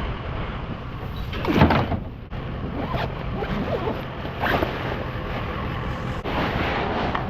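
A vehicle engine idling steadily, with several short rustling clatters as scrap is handled, the loudest about a second and a half in.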